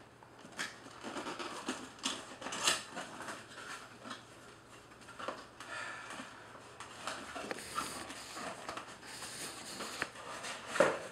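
A white paperboard lens box being opened by hand: its flaps and tabs scraping and rustling, with a few sharp taps and clicks, the loudest near the end as the box is lifted and tipped.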